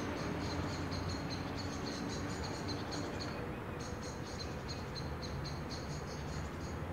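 Quiet room ambience with an insect chirping in a high, even pulse, about four to five chirps a second, pausing briefly about three seconds in.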